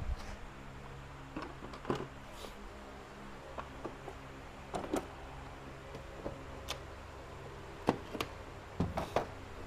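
A steady low mechanical hum with a dozen or so irregular sharp clicks and taps scattered over it, the loudest about two, five and eight seconds in.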